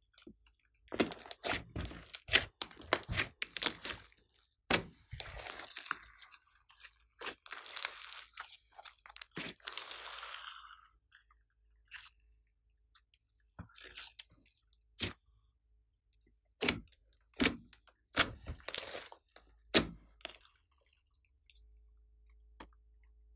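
A large mixed slime with small beads in it being squished, stretched and pressed by hand. It makes sharp wet pops and clicks, with a longer hissing crackle around the middle, then falls quiet near the end.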